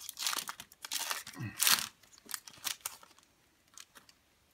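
Foil Pokémon booster pack wrapper being torn open and crinkled by hand: a run of sharp crackling rips, loudest a little before halfway, dying away to a few faint clicks after about three seconds.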